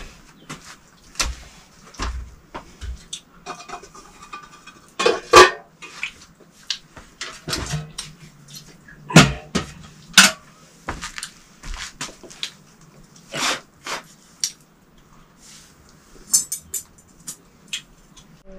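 Metal utensils and dishes clattering: irregular clinks and knocks against pots and plates, with two louder clanks about five and nine seconds in.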